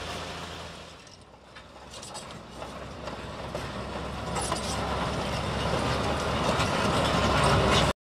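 Caterpillar crawler bulldozer running, its tracks clattering as it drags its ripper shanks through the dirt. The sound dips about a second in, grows steadily louder, then cuts off suddenly just before the end.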